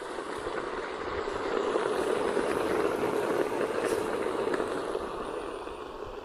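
Bacon, ham and vegetables sizzling in a hot cast-iron kettle over a campfire: a steady hiss that swells toward the middle and eases off near the end.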